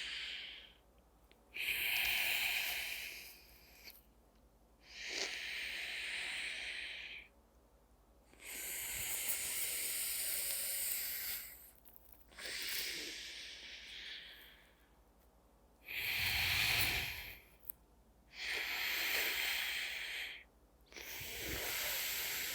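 A man breathing slowly and audibly through his nose in alternate-nostril breathing (Nadi Shodhan), each breath a hiss of air lasting one to three seconds. There are about seven breaths, with short pauses between them.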